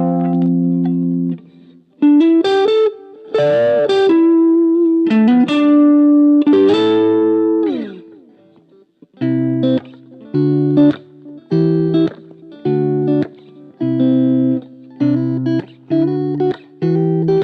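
Electric guitar played through a Blackstar Fly 3 3-watt mini amplifier. A held chord gives way to a single-note lead line with string bends and a slide down. About halfway through, the playing turns to short, clipped chords in a steady rhythm.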